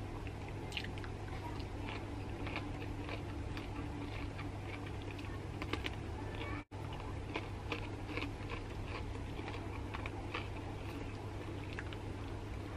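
Close-up eating sounds: chewing with irregular wet mouth clicks and smacks, over a steady low hum. The sound drops out for an instant about halfway through.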